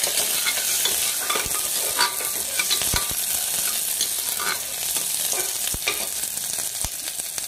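Sliced onions sizzling in mustard oil in an aluminium pressure cooker, stirred with a steel ladle that scrapes through them and knocks sharply against the pot a few times.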